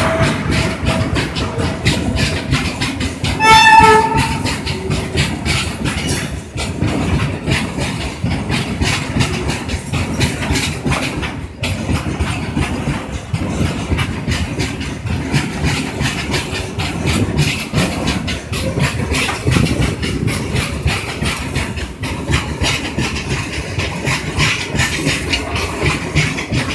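Loaded freight train's open box wagons rolling past at close range, wheels clattering rapidly and steadily over the rail joints. A brief, loud high-pitched tone sounds about four seconds in.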